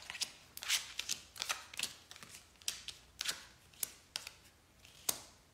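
A deck of fortune-telling cards being shuffled by hand: about a dozen short, papery strokes at an uneven pace, the loudest about five seconds in.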